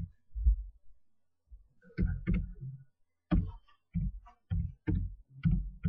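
Computer keyboard being typed on: irregular keystrokes two or three a second, each a sharp click with a dull low thump.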